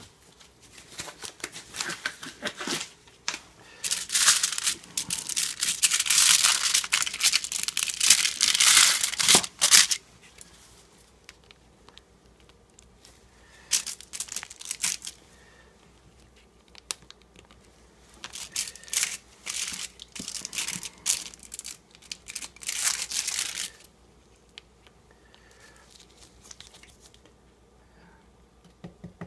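Nitrile gloves being pulled on, a dense crinkling rustle for about the first ten seconds; later, shorter bursts of plastic-bag crinkling as the bag around the clamped resonator box is handled.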